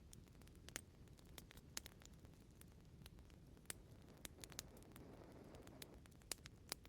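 Fireplace wood fire crackling: irregular sharp pops and snaps over a soft, steady low rumble of flames, with a brief swell of hissing about five seconds in.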